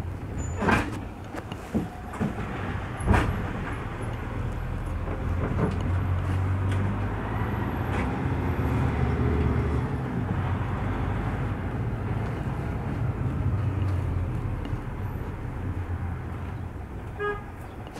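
Engine and road noise from inside a moving vehicle, a steady low hum that swells a little mid-way. There are a couple of sharp knocks in the first few seconds and a short beep near the end.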